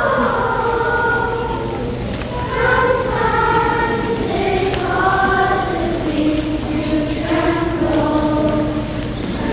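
Schoolchildren singing together as a choir, a melody of held notes.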